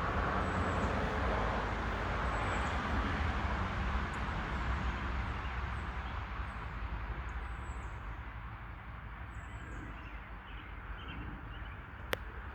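Outdoor background noise: a steady low rumble and hiss that eases off over the second half, with faint high chirps scattered through it and one sharp click near the end.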